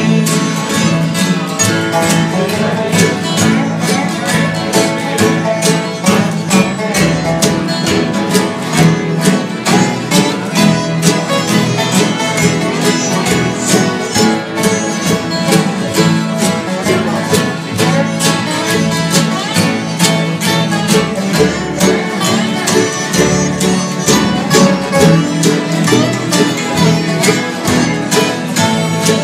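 Bluegrass band playing an instrumental break with no singing: strummed acoustic guitars, resonator guitar (dobro), fiddle and upright bass, played at a steady rhythm.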